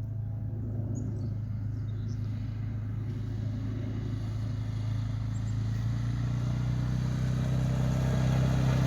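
A Suzuki vehicle's engine running at a steady pitch, growing gradually louder as it approaches.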